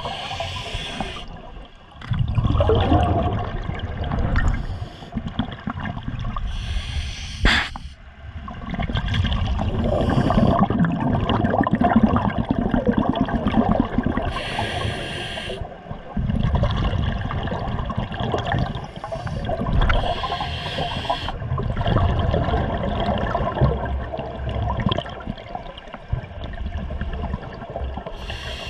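Scuba diver breathing through a regulator underwater: a hissing inhalation every several seconds, each followed by a long rumble of exhaled bubbles. A sharp click about seven and a half seconds in.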